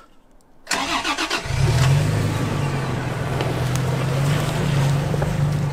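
Toyota Tacoma TRD Pro's 3.5-litre V6 being started in first gear with clutch start cancel engaged, so the starter motor turns the wheels in 4-low. It cranks briefly under load about a second in, then the engine catches and runs steadily as the truck creeps forward.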